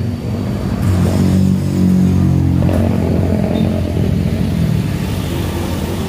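Motorbike engine running past on the road, growing louder about a second in and then easing off a little.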